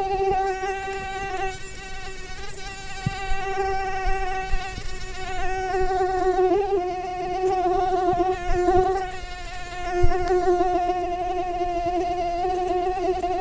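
Mosquito in flight, its wings giving a steady high-pitched whine with a slight waver in pitch and loudness.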